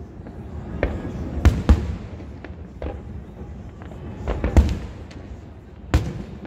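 Aerial firework shells bursting in a display finale: an irregular series of sharp booms, roughly one a second, over a steady low rumble.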